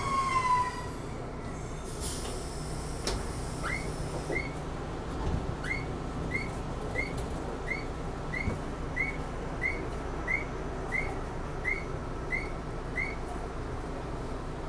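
Randen tram running steadily, with a wheel squeal falling away in the first second. From about four seconds in, a short high electronic tone repeats about one and a half times a second: a level-crossing warning alarm sounding ahead of the tram.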